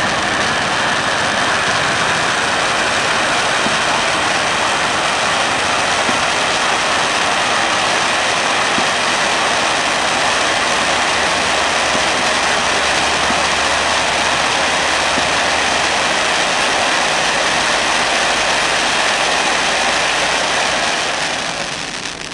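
Silver stage fountain (a 6 m, 30-second pyrotechnic gerb) spraying sparks with a steady loud hiss, fading near the end as the fountain dies down.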